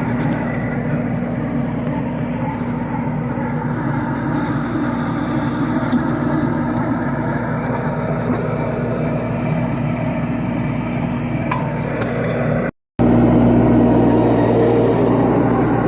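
Wacker Neuson mini skid steer running steadily under load with a 6-inch trencher attachment digging, a constant low hum over a noisy engine and machine drone. The sound drops out for a split second about 13 seconds in.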